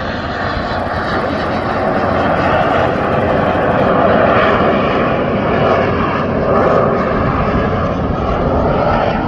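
Formation of Canadair CT-114 Tutor jets flying past with gear and flaps down, a steady jet-engine rush that swells to its loudest about four seconds in and stays loud.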